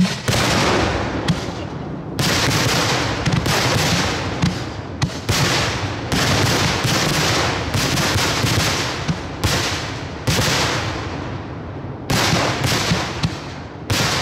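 Rapid barrage of aerial salute shells bursting overhead: dense, overlapping sharp bangs, several a second, each trailing off in echo.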